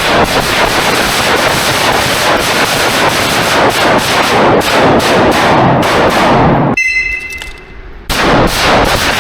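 Rapid, overlapping rifle gunfire, shots packed closely together in a dense string. Near the end the firing stops for about a second, leaving a brief high ringing tone, then resumes.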